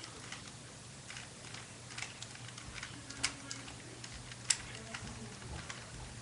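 Plastic Rubik's Cube turned by hand: irregular light clicks of its layers twisting, with two sharper clicks about three and four and a half seconds in.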